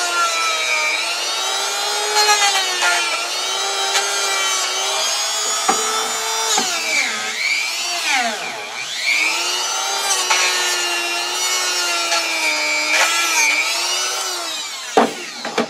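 Handheld rotary tool running at high speed while cleaning a Singer 15-91 sewing machine cam. Its whine sags in pitch each time it is pressed against the part, most deeply about halfway through, then it stops about a second before the end.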